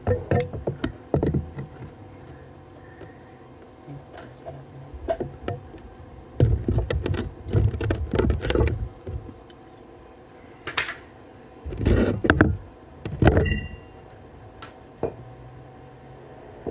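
Irregular knocks and clatter of hard objects being handled, in clusters a few seconds apart, with a brief metallic ring about halfway through the last cluster.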